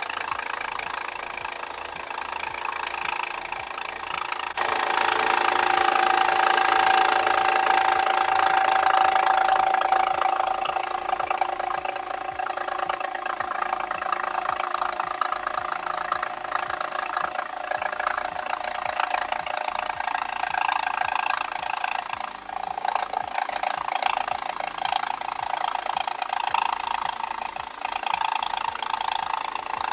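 Jigsaw motor running with its plexiglass-cutting blade working through a sheet of plexiglass, a steady buzzing whine. It gets louder and brighter about four seconds in as the cut takes load.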